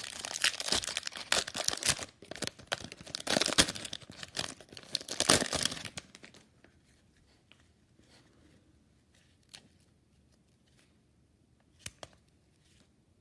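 A trading card pack wrapper being torn open and crinkled for about six seconds, then quiet apart from a few faint taps.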